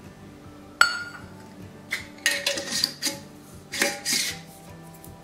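A metal measuring cup and glass jars knocking together as dry soup mix is measured into a mason jar: one sharp clink about a second in, then a run of clattering taps and scrapes.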